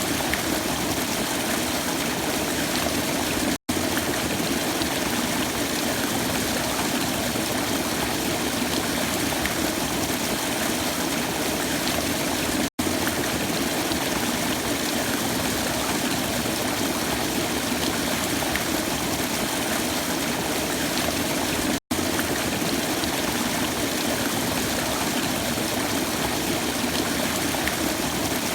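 Waterfall: a steady rush of falling water, broken three times by a split-second gap of silence, about every nine seconds.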